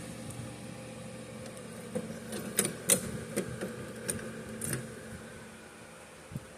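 About six sharp clicks and taps, irregularly spaced over a few seconds, from handling a fire alarm device, over a steady low hum.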